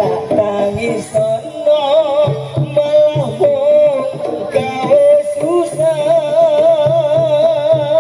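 Live jaranan music: a gamelan-style ensemble with repeated low drum and gong strokes and stepping metallophone notes, under a held lead melody that wavers with a strong, even vibrato.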